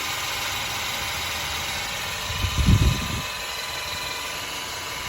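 FEANISIFEI 12V electric hydraulic car jack's motor and pump running steadily with a thin whine while taking up the weight of a heavy pickup's front end. A louder low thump comes about halfway through.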